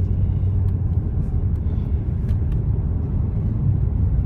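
Car road noise heard from inside the cabin: a steady low rumble of the engine and tyres.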